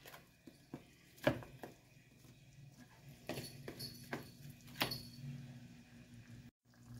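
Plastic spoon stirring ground beef, peas and carrots in a nonstick skillet, giving a few faint scrapes and light knocks against the pan.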